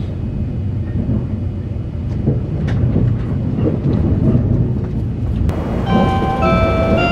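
Cabin running noise of an E657-series limited express Hitachi: a steady low rumble of wheels on rail. About five and a half seconds in, the train's on-board Hitachi chime melody starts playing, the chime that comes before the announcement for arrival at the terminal.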